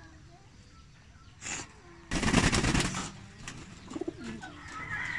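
Domestic pigeons cooing low in a loft, with a loud, rapid fluttering rattle lasting about a second about two seconds in.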